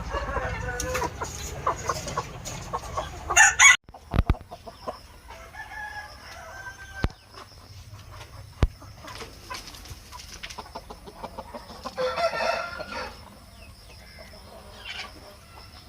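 Aseel chickens clucking, with a rooster's crow and some scattered sharp knocks; a loud sharp noise comes about three and a half seconds in and is followed by a brief gap.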